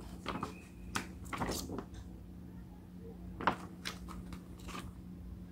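Light handling noises: a few scattered taps and rustles as a plastic model kit's box and parts are moved about, over a faint steady low hum.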